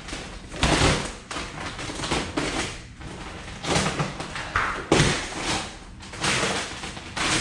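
Sheet of vinyl wrap film being handled, stretched and pressed over a car bumper: irregular rustling, crinkling bursts with soft thumps, about half a dozen in all.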